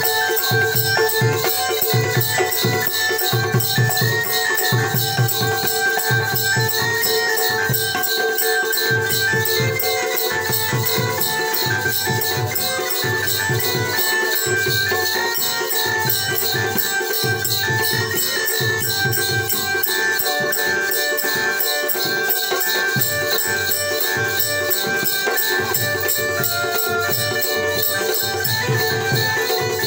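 Live Jakhadi folk music: a hand drum beating a quick, driving rhythm under a steady metallic jingle, with a singer's voice carrying the tune.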